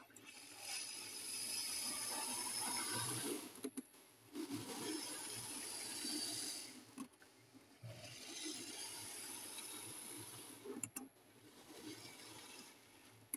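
HO-scale model train running along the track: a faint whir of the locomotive's small motor and the wheels rolling on the rails. It comes in three or four stretches with short breaks between, and a couple of small clicks near the end.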